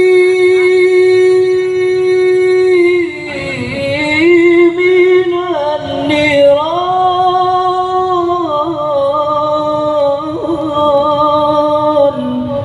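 A solo voice singing an Arabic sholawat chant without drums: a long note held for about three seconds, then a slow, ornamented line of sliding and wavering notes.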